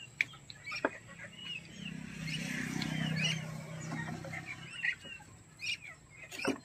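Chickens clucking, loudest between about two and four seconds in, with short chirps from small birds and a few sharp clicks.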